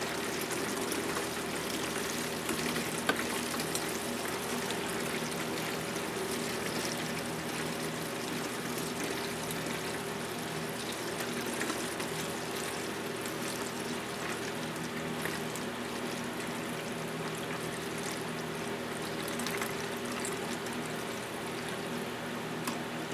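Distilled water pouring in a steady stream from a plastic gallon jug into the narrow neck of a plastic coolant jug as it fills, measured out to dilute concentrated antifreeze.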